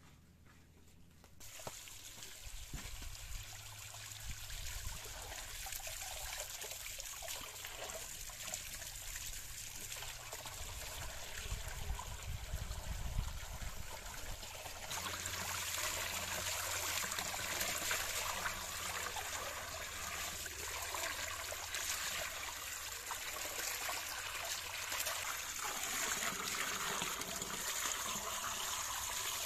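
Water pouring steadily from an open pipe and splashing onto a concrete trough and over a raw chicken held in the stream. It starts about a second and a half in and grows louder about halfway through.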